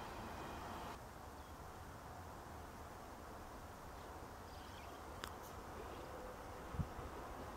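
Faint outdoor background by a railway line, with a low steady rumble and a few faint bird chirps about five seconds in, and a short low knock near the end.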